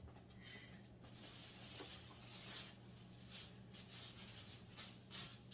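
Faint rustling and rubbing of plastic sheeting being folded and smoothed down by hand, in soft repeated strokes over a low steady hum.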